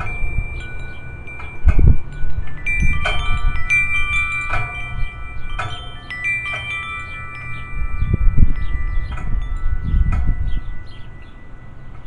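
Metal tube wind chimes stirred by the breeze, the tubes clanging together and ringing on in long overlapping tones, busiest in the middle and thinning out toward the end. A low gusty rumble of wind on the microphone swells under them.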